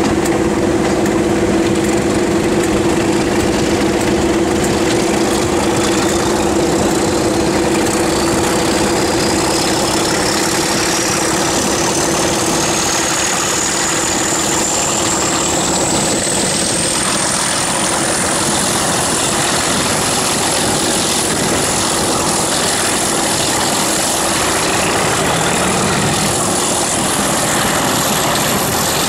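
Class 37 and Class 31 diesel locomotives working hard together with the train under way: a loud, steady engine note with a high whine that climbs steadily in pitch over about twenty seconds and then holds, over the rush of wheels and wind.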